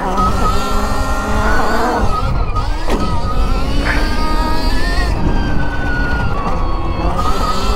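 Stark Varg electric dirt bike's motor whining while riding, its pitch rising and falling with speed, over a steady low rumble.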